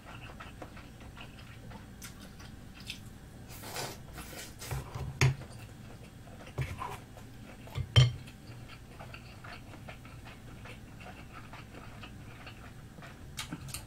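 Eating sounds: wooden chopsticks clicking against a glass bowl and dishes a few times, with soft chewing in between. The sharpest click comes about eight seconds in.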